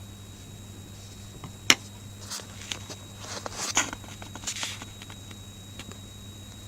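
A scattered run of sharp clicks and short taps, the loudest a single click about a second and a half in, over a steady low electrical hum.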